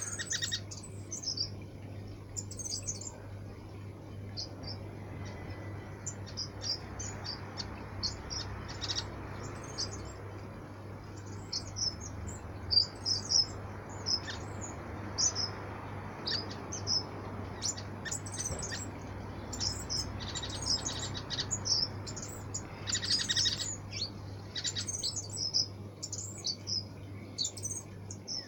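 A flock of waxbills chirping: many short, high calls, several a second, scattered throughout. Underneath, a small stone garden fountain trickles steadily.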